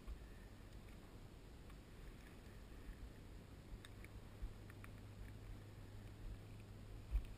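Faint handling noise: scattered small clicks and rustles as a headset and camera are moved about in an open cockpit, over a low rumble of wind on the microphone. A faint steady low hum sets in about three seconds in, and a single sharper knock comes near the end.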